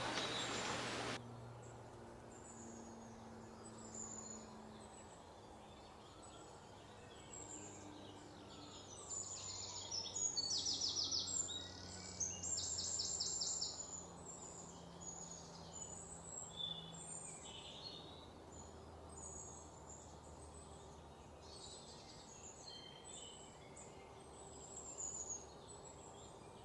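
Birds chirping: short high calls repeating throughout, with two bursts of rapid trilling about ten and thirteen seconds in, over faint background hiss.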